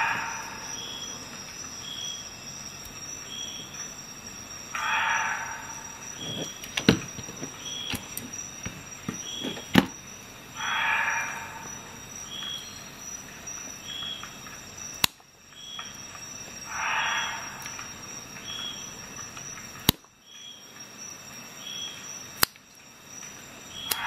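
Green paracord being cut with the small spring-loaded scissors of a Leatherman Wave+ multi-tool: a rasping snip through the woven sheath and core about every six seconds, five in all, each lasting about a second. A few sharp clicks fall between the cuts.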